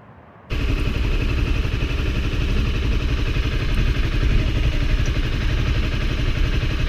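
Motorcycle engine running steadily at low revs, cutting in abruptly about half a second in.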